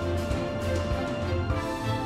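Background music with held melodic notes over a bass line and a steady beat.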